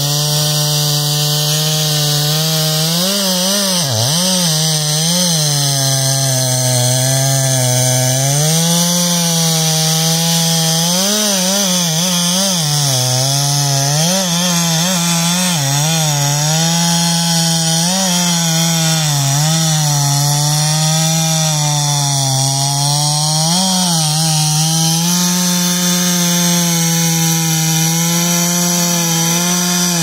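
Two-stroke chainsaw running at full throttle through a felled tree trunk. The engine note dips and recovers again and again as the chain bogs in the wood, then falls away at the very end as the throttle is let off.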